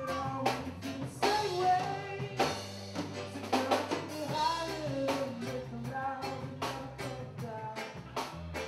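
Live band performing: a man singing a melody over guitar, bass and a drum kit with regular drum hits.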